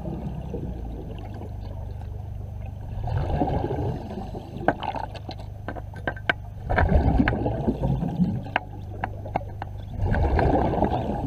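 Underwater sound at a diver's helmet: a steady low rumble, with a gush of bubbling breath about every three to four seconds and scattered sharp clicks in between.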